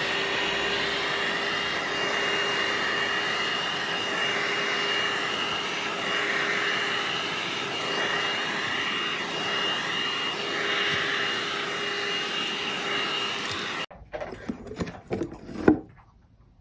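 Car vacuum cleaner running with a steady whine, then stopping abruptly near the end, followed by a few knocks and clatter.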